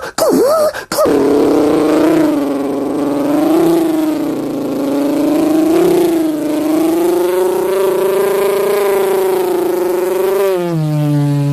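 A person imitating a car engine with their mouth. A few quick swooping tones are followed by a long, wavering engine-like drone, which drops lower near the end as a deeper second tone comes in.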